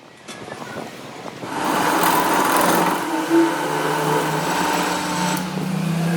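A motor-driven workshop machine running, building up about a second and a half in and then holding steady, with a steady whine in it.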